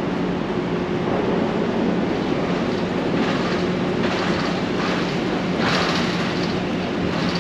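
Street traffic noise: a steady rush with a constant low hum under it, and a few short hissing swells in the second half.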